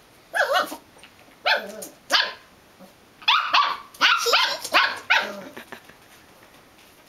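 Belgian Malinois puppy barking at its own reflection in a mirror: a string of short, high-pitched yapping barks in three bunches, the busiest run coming about three seconds in.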